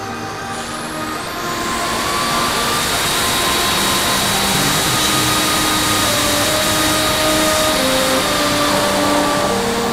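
Rushing wind noise from the airflow over an onboard camera on a fast-flying F3F radio-controlled racing glider, swelling about two seconds in and then holding steady.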